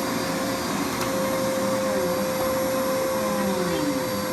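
Bissell vacuum cleaner running steadily, its motor giving a constant whine over a steady rush of air.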